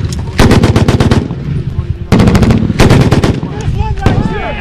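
Loud bursts of automatic gunfire in a firefight. A run of rapid shots lasting about a second comes near the start, then two shorter bursts past the middle, with scattered single shots between.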